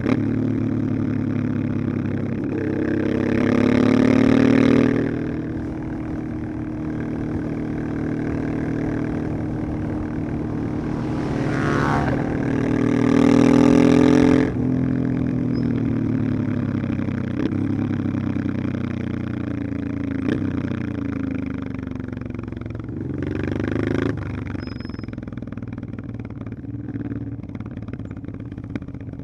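1989 Honda Transalp XL600V's 583 cc V-twin engine running, revving up three times. The first climb comes at about three seconds, a stronger one at about twelve seconds drops off sharply as the throttle is closed, and a short blip comes near twenty-four seconds, with steady running in between.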